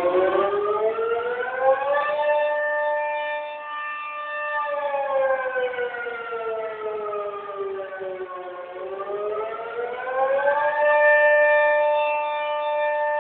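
Outdoor tornado warning siren sounding a test in a wail: its several-toned pitch rises for about two seconds, holds, sinks slowly for about four seconds, then rises again and holds steady near the end.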